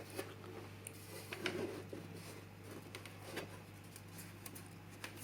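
Faint handling sounds as glass is glued back into a picture frame with wax: a few light taps and rubbing strokes, over a low steady hum.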